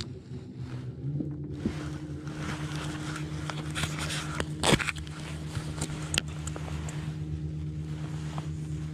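A small boat's outboard motor running steadily, its pitch stepping up about a second in as the boat gets under way. A few sharp knocks from the camera being handled, the loudest about halfway through.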